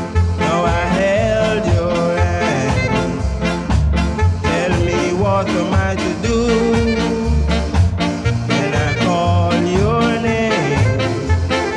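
Late-1960s reggae record playing: a singer over a steady beat and a bouncing bass line.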